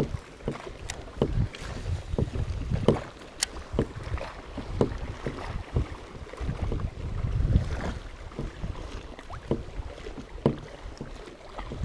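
Wind buffeting the microphone and small waves slapping against a kayak's hull, with scattered short knocks and taps.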